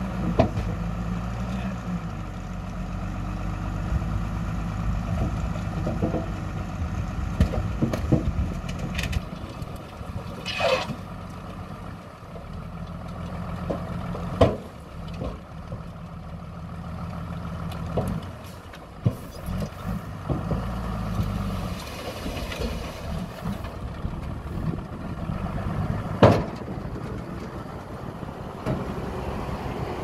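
Hyundai dump truck's diesel engine running while the truck tips its bed to dump dirt, with several sharp clanks and knocks and a brief hiss of air about ten seconds in.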